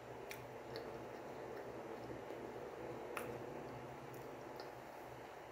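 Faint, steady refrigerator hum with a handful of light ticks scattered through, the crackling ('estralando') that the owner says this fridge has made ever since she bought it.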